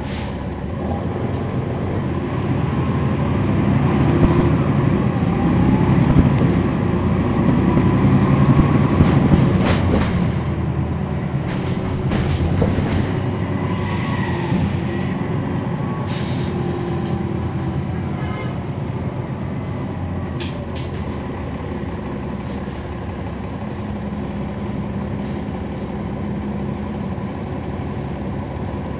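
Cummins ISL9 diesel engine of a 2011 NABI 40-SFW transit bus heard from on board, accelerating. It grows louder over the first several seconds, peaks about eight to nine seconds in, then eases off into a steadier, quieter run. A sharp knock sounds about ten seconds in.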